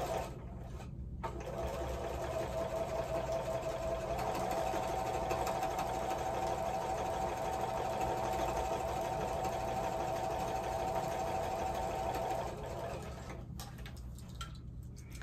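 Sewing machine stitching a seam in pieced quilt blocks, running steadily for about twelve seconds with a steady whine that steps up slightly in pitch a few seconds in, then stopping.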